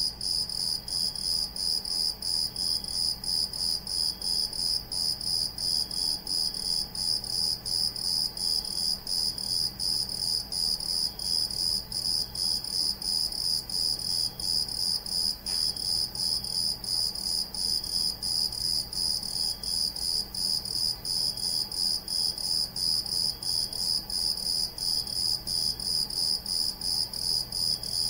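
A cricket chirping steadily: a high-pitched trill in regular pulses, several a second, without a break.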